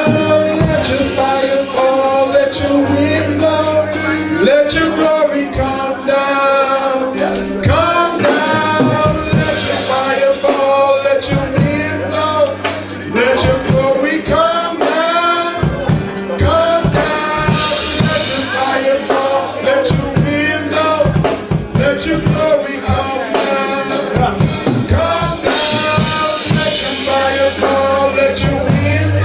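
Gospel worship music: singing over a drum kit and bass, playing steadily throughout.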